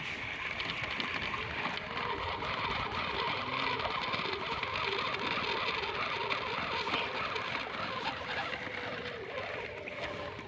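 A steady engine-like motor running, easing off a little near the end.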